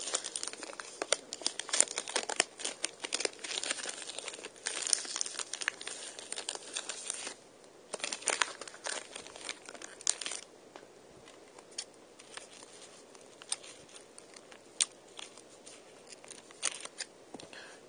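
Clear plastic CD packaging crinkling and crackling as it is worked and torn at by hand to get it open. The crackling is dense for about the first seven seconds and comes again in a short cluster a little later. It then thins to occasional scattered clicks for the rest of the time.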